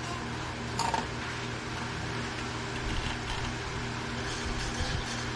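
Steady hum of an electric motor running, with a single knock about a second in.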